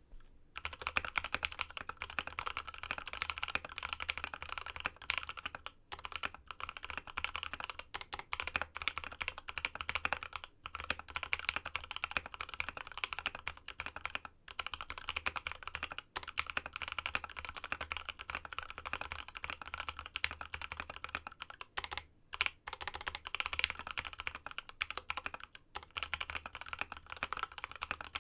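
Steady, fast typing on a Space65 custom mechanical keyboard with Krytox 205g2-lubed Tealios V2 linear switches, a carbon fiber plate in an aluminum case, and MT3-profile PBT keycaps. It is a dense stream of keystroke clacks with a few short pauses.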